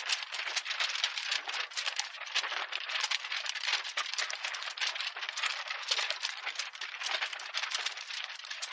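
Dense, rapid rattling crackle of many small clicks packed tightly together, thin and high with no low end: a rattling sound effect under an intro title sequence.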